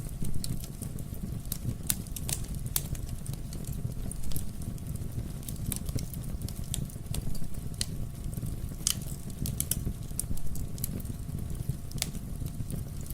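Wood fire burning in a fireplace: irregular sharp crackles and pops scattered throughout, over a steady low rumble of the flames.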